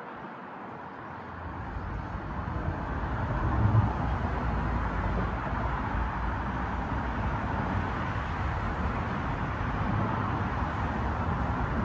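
Steady outdoor noise: a rushing haze with a low rumble, building over the first two seconds and then holding steady.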